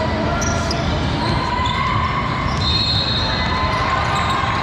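Basketball game sound in a large, echoing gym: a ball bouncing and players' sneakers on the court, with a short high shoe squeak about two and a half seconds in. Distant voices echo under it all.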